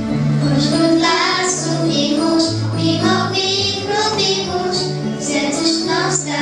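Children singing a song over an instrumental accompaniment with a steady, held bass line; the voices come in about a second in.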